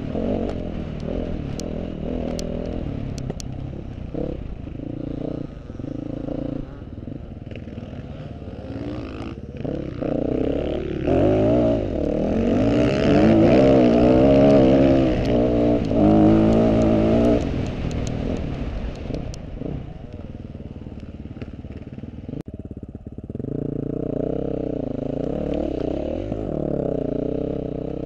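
KTM off-road motorcycle engine revving up and down as it is ridden through mud, its pitch rising and falling with the throttle. It is loudest a little before the middle, eases off for a few seconds, then picks up again near the end.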